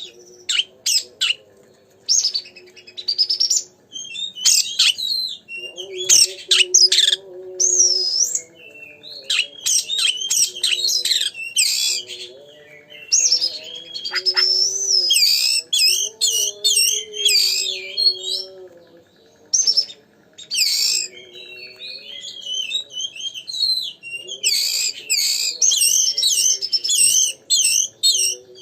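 Oriental magpie-robin (kacer) in full song: loud, varied phrases of whistles, trills and chirps, each a second or two long with short pauses between. It is a 'gacor' bird's song, used as a lure recording to rouse other kacers to sing.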